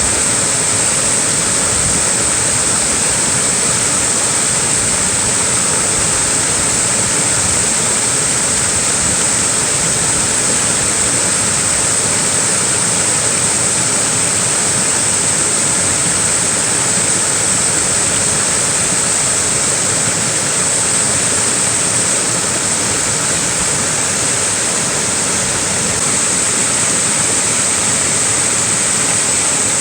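Small waterfall splashing steadily, an unbroken rush of falling water with a strong hiss.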